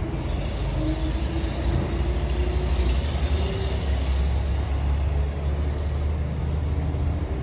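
Steady low rumble of background noise, with a few faint short tones above it.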